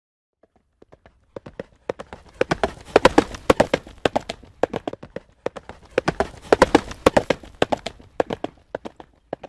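Horse hooves galloping: rapid hoofbeats start faintly about half a second in, grow loud, ease briefly in the middle, swell again, then thin out near the end.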